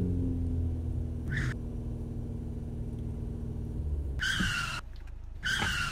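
Maruti Suzuki Ertiga's engine running steadily, heard from inside the car, with a short high chirp about a second in and two brief high two-toned sounds near the end.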